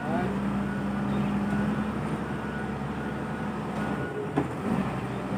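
Caterpillar wheel loader's diesel engine revving up and running hard as it lifts and tips a bucket of oil palm fruit bunches into a trailer, then easing off after about four seconds. A reversing alarm beeps at intervals, and there is a sharp knock about four seconds in.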